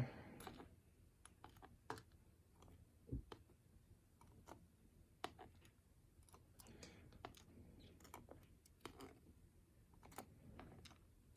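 Faint, scattered clicks and taps of small metal lock parts and tools being handled as a pin-tumbler lock is taken apart, with a few louder taps among them and brief soft rustling.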